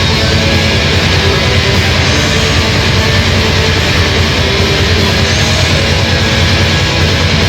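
Live heavy metal band playing: a loud, dense, unbroken wall of distorted guitar and band sound with heavy bass.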